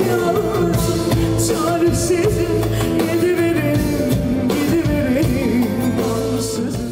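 A woman singing a Turkish pop song live into a microphone, with a full band of drums, bass, keyboards and guitar accompanying her.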